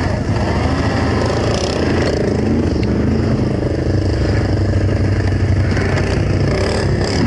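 ATV engine running steadily, a low continuous drone with no clear revving.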